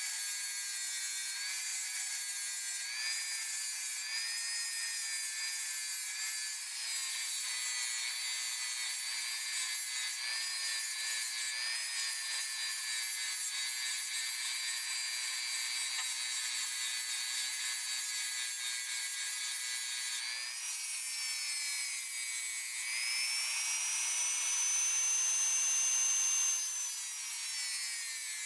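Small high-speed rotary tool running a brush or abrasive wheel against metal: a steady high whine over a scrubbing hiss. For a few seconds near the end the whine rises in pitch and gets louder, then drops back.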